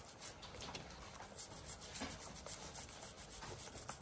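A brush scrubbing crayfish shells clean: quick, repeated rubbing strokes, fairly faint.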